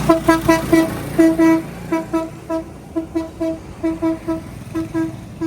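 A vehicle horn honking over and over in short toots, all on one pitch, about three or four a second in an uneven rhythm.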